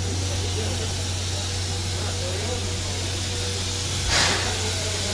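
C11-class steam tank locomotive standing with steam up: a steady hiss over a low hum, with a short, sharp burst of escaping steam about four seconds in.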